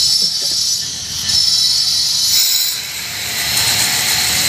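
Sandstone being worked in a carving workshop: a steady, high scraping hiss with a thin whine over it, swelling and easing about every second or two.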